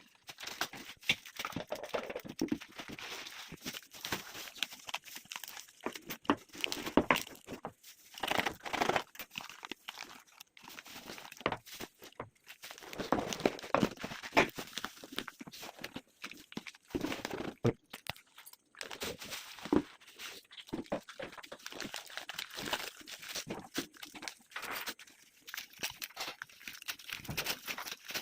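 Packaging crinkling, crunching and tearing in irregular bursts as it is handled and pulled open to unpack a plant.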